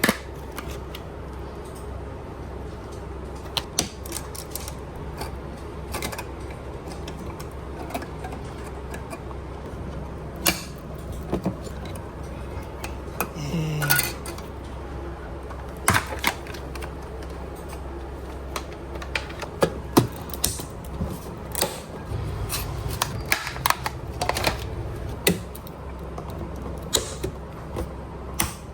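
Irregular clicks, taps and light knocks of hands working on a computer, over a steady low hum, with a brief low rumble about two-thirds of the way through.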